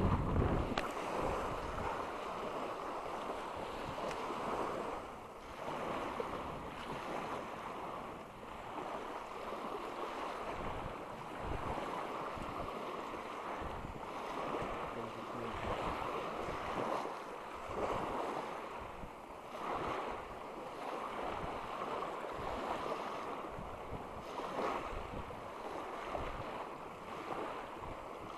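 Small wind-driven waves breaking and washing up onto the shore in a steady rush, with gusts of wind buffeting the microphone.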